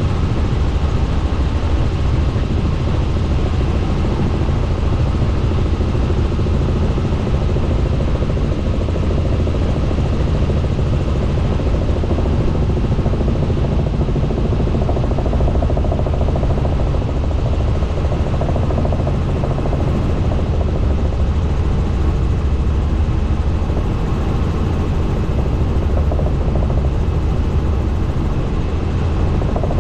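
Helicopter in flight: the rotor and engine make a steady, deep, unbroken drone.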